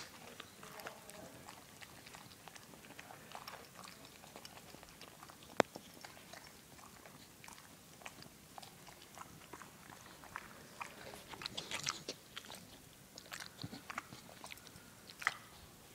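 Boxer dog chewing a pretzel: irregular crunches and wet mouth clicks, with one sharp crack about five and a half seconds in and a quick run of crunches a little before the end.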